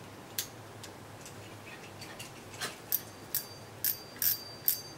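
Yoshikawa CY3000 baitfeeder spinning reel clicking as it is worked by hand: a series of sharp mechanical clicks about two a second, faint at first and louder in the second half, several with a brief metallic ring.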